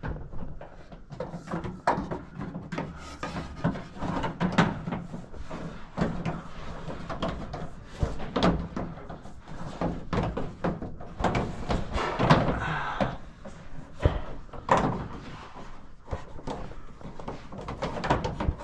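Irregular knocks, bumps and rustling from hands-on work, with a denser run of clattering about twelve seconds in.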